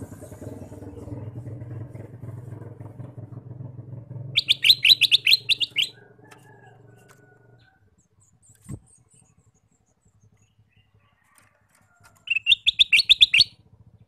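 Ruby-throated bulbul (kutilang emas) singing two loud bursts of rapid repeated chattering notes, about ten a second, each lasting just over a second. One burst comes about four seconds in and the other near the end.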